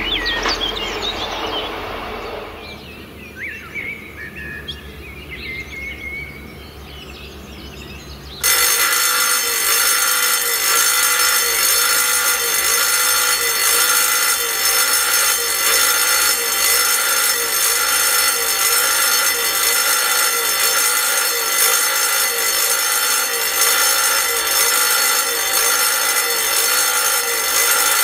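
Birdsong over a fading train rumble in the first few seconds. About eight seconds in, a German level-crossing's electric warning bell starts suddenly and rings loudly and steadily, sounding as the crossing is activated with its '2 ZÜGE' sign lit, which warns that two trains are approaching.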